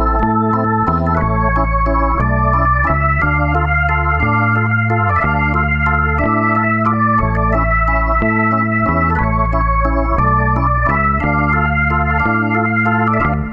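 Background instrumental music: sustained organ-like keyboard chords over a bass line that changes note about once a second.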